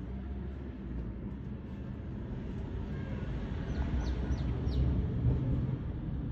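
Steady low background rumble, like distant traffic, with three or four short high chirps about four seconds in.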